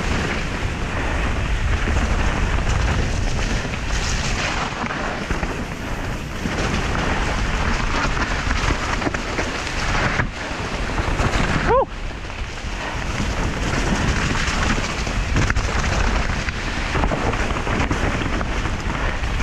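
Mountain bike descending a wet dirt trail at speed: a steady rush of wind over the action camera's microphone mixed with rumbling tyre and trail noise, and a brief squeal about twelve seconds in.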